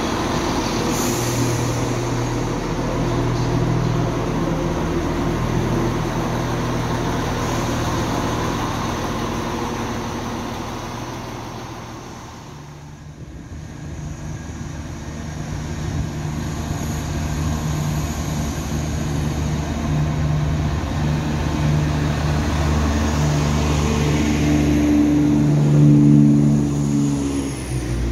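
Two Turbostar diesel multiple units: first the ex-Southern Class 171 pulling out, its underfloor diesel engine note fading away over about twelve seconds. After a short lull, a second Turbostar's engine grows steadily louder as it runs along the platform and passes close, loudest near the end.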